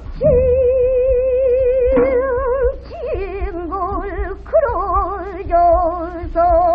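Female pansori voice holding a long note with a wide, slow vibrato, then moving down to lower held notes joined by short slides, over a low steady hum.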